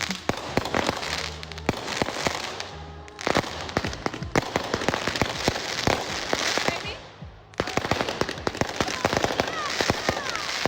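Fireworks popping and crackling in rapid, overlapping bangs, with music playing underneath.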